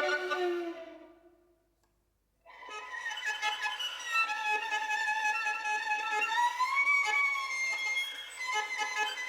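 Experimental new music: a held note fades away to silence about two seconds in, then a high sustained line enters with slow sliding changes of pitch.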